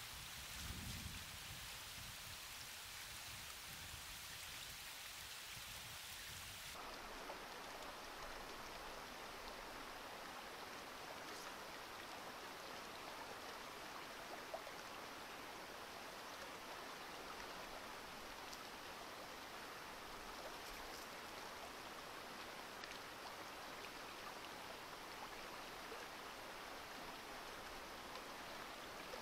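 Faint, steady rush of flowing creek water, its tone shifting abruptly about seven seconds in.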